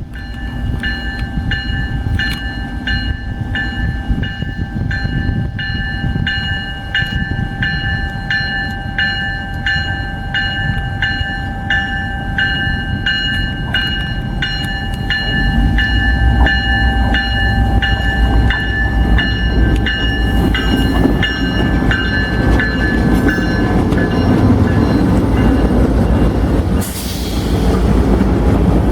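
Railroad crossing bell ringing at about two strokes a second while an Ontario Northland train approaches, its low rumble growing heavy about halfway through as the train passes. The bell stops near the end.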